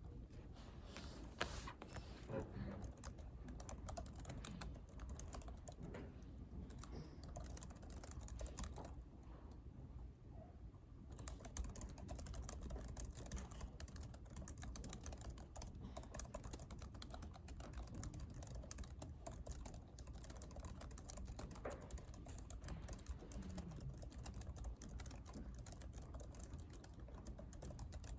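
Typing on a computer keyboard: a continuous, irregular run of key clicks over a steady low room hum. The typing thins briefly about a third of the way in, then grows busier.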